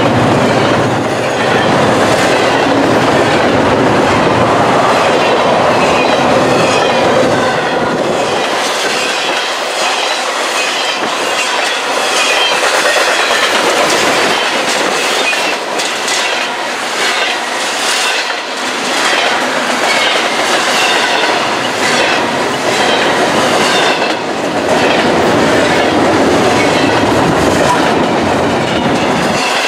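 Double-stack intermodal container train rolling past at close range: a steady din of steel wheels on rail with rhythmic clickety-clack as the well-car trucks cross rail joints, and high wheel squeals at times.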